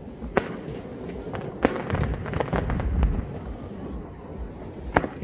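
Aerial fireworks shells bursting: sharp bangs about half a second and a second and a half in, then a run of crackling pops with a low rumble around two to three seconds, and another bang near the end.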